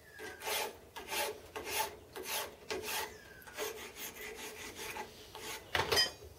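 Hand file rasping over the edges of an aluminium casting held in a bench vise, deburring it in steady push strokes, about three strokes every two seconds. A few sharper knocks come near the end.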